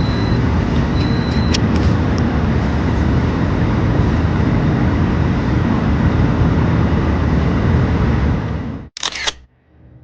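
Steady road noise of a car driving. It cuts off abruptly about nine seconds in with a short click, after which only a faint sound remains.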